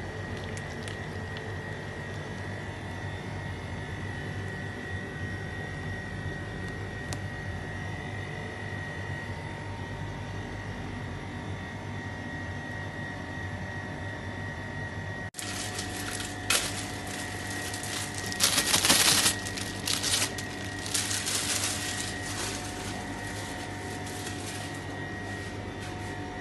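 A steady mechanical hum, like a fan or motor, runs throughout. After about 16 seconds it is joined by several louder bursts of rustling and clatter, the loudest near 19 seconds.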